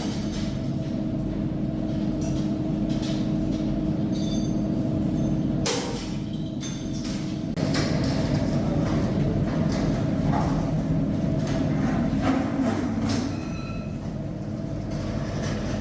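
Heavy industrial machinery running with a steady low mechanical drone, broken by scattered knocks and clanks. The drone drops briefly about six seconds in and eases off again near the end.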